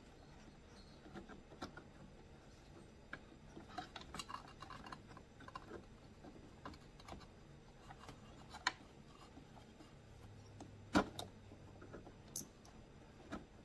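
Scattered small clicks and knocks of carburetor and plastic blower-housing parts being handled and pushed together as the carburetor is worked back into a Stihl handheld blower. A quick cluster of clicks comes a few seconds in, and a single sharper knock comes late on.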